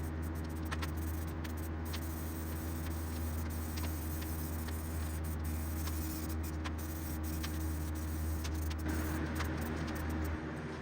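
A steady low machine hum with a faint even hiss and scattered light clicks. The deepest part of the hum drops away near the end.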